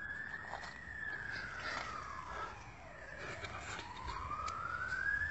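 Emergency-vehicle siren wailing, its pitch sliding slowly up and down, highest about a second in and again near the end.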